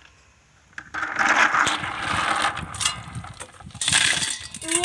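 Water splashing and dripping as a wire-mesh strainer of snails is lifted from a bucket and tipped into an aluminium pot, with many small clicks of snail shells knocking together and on the metal, starting about a second in. A short pitched call is heard near the end.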